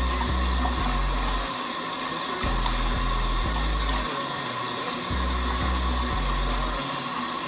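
Bathtub faucet running a thin stream into a full tub: a steady hiss and patter of pouring water. Background music with a slow bass line plays along with it.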